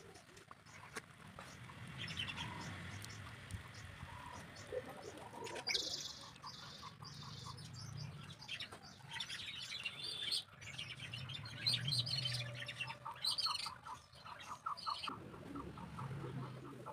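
Birds chirping, with a run of quick repeated calls in the last few seconds.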